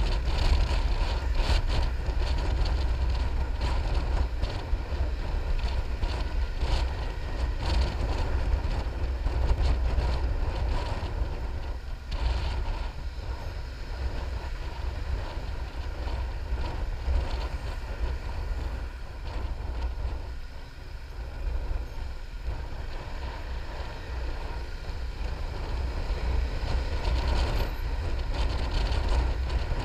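Wind buffeting the microphone of a Piaggio MP3 500 three-wheeled scooter riding at town speed, with the scooter's engine and tyre noise underneath. The rumble eases briefly about two-thirds of the way through.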